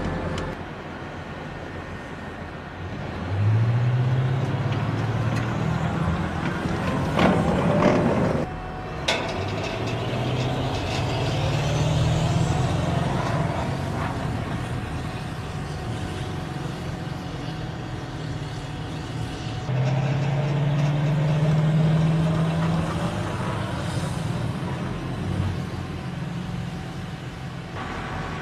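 Heavy vehicle engine running, its pitch rising several times as it revs, with a loud clattering stretch about seven seconds in and a sharp click about nine seconds in.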